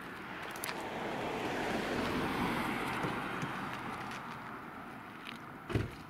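A car passing on the road: tyre and engine noise swelling up over a couple of seconds and fading away. A short low thump near the end.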